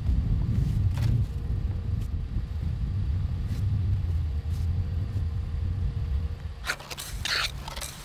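Snow brush sweeping heavy snow off a car's roof and rear window, over a steady low rumble; near the end come several louder, scratchy brushing strokes.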